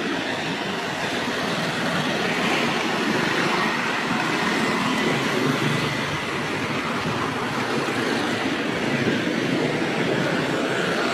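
Steady rushing noise of a moving vehicle, heard from on board.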